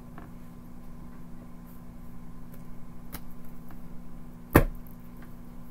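Tarot cards being handled and shuffled, with a few faint clicks, then one sharp slap of cards against the table about four and a half seconds in. A steady low hum runs underneath.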